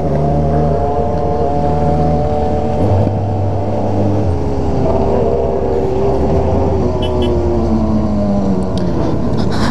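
Motorcycle engine running at a steady cruise, heard from the rider's own bike with wind rush over the microphone; the engine note eases down a little in the second half as the bike slows.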